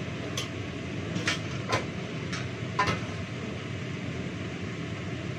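Metal kitchenware clinking as pans and plates are handled, four sharp clinks in the first three seconds, over a steady low rumble.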